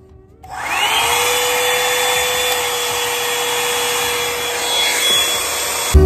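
Revlon One-Step hot-air brush hair dryer switched on at its high setting about half a second in. Its motor spins up with a quickly rising whine, then runs steadily with a loud rush of blown air.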